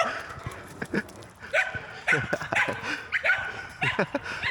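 Excited dogs barking and yipping: a string of short, high barks that starts about a second and a half in and comes in quick succession.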